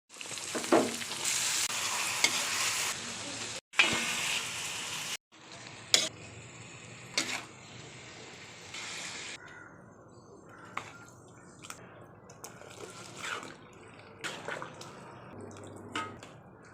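Food sizzling in hot oil in a pan while a metal utensil stirs and scrapes, loud for about the first five seconds with brief cut-offs. After that the hiss is quieter, with occasional clinks of the utensil against the pot.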